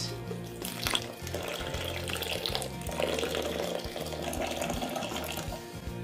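Water pouring from a glass carafe onto coarse-ground coffee in a Toddy cold brew paper filter bag: a steady splashing pour that tails off near the end, over background music.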